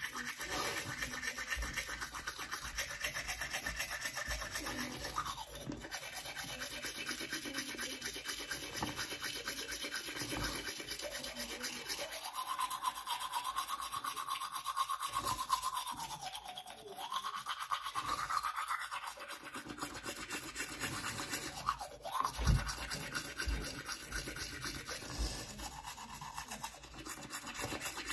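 Manual toothbrush scrubbing teeth through a mouthful of charcoal toothpaste foam, in quick, continuous back-and-forth strokes.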